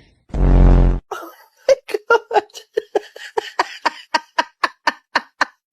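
A short, loud, deep blast lasting under a second, then a long run of quick laugh pulses, about five a second, that carry on to the end.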